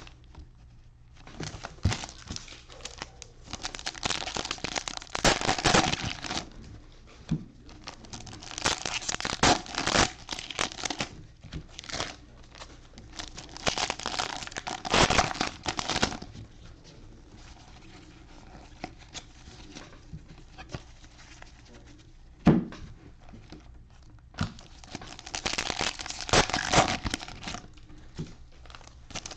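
Trading card pack wrappers being torn open and crinkled in irregular bursts while cards are handled, with a quieter stretch in the middle and a single sharp knock about two thirds of the way through.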